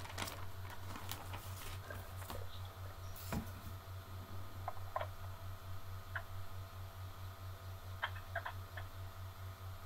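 Open-microphone background: a low hum beating about four times a second, with scattered faint clicks in the first few seconds and a few short high blips later on.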